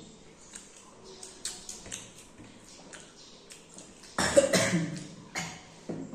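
Quiet mouth clicks and smacks of people eating, then about four seconds in a sudden loud cough, with a smaller one near the end.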